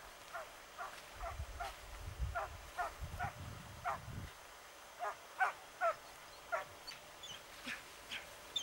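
Drever hound barking in a quick run of short, high yelps, about two or three a second, with a short pause around four seconds in. A low rumble sits under the barks for the first few seconds.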